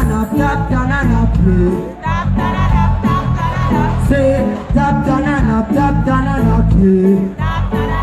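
Dancehall music played loud over a heavy bass beat, with a voice singing over it.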